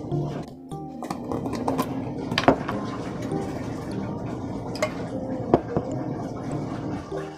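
Kuppet 26 lb portable washing machine on its wash cycle, its agitator swishing water and clothes around the tub. Steady sloshing with scattered sharp knocks and clatters, the loudest about two and a half and five and a half seconds in.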